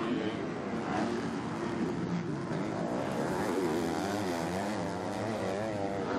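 Two 250cc four-stroke motocross bikes, a Husqvarna and a Yamaha, racing close together through a corner. Their engines rise and fall in pitch with the throttle, and from about halfway the revs waver rapidly.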